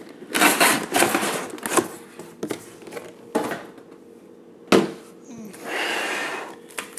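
Cardboard and plastic packaging being handled: a box slid out of a cardboard carton and opened, with scraping and rustling, a sharp knock a little before five seconds in, and a longer papery rustle near the end as printed cards are pulled out.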